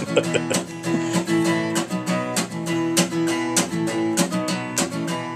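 Acoustic guitar strummed in a steady rhythm as an instrumental break between sung verses of a song.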